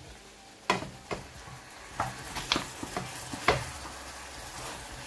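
Wooden spoon stirring chicken pieces in a cooking pot, knocking and scraping against the pot about five times, over a steady low sizzle of the chicken cooking in its own juices.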